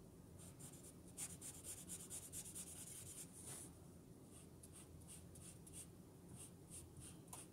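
Faint scratching of an alcohol-based marker's chisel felt tip rubbing back and forth on marker paper, in quick repeated strokes as it colours in a small square.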